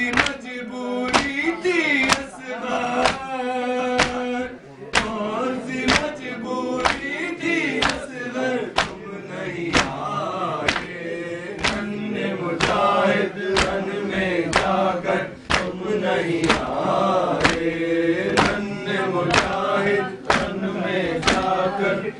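Men chanting an Urdu noha (Shia mourning lament) together, over sharp, even strikes about once a second: the mourners' rhythmic chest-beating (matam) keeping time with the lament.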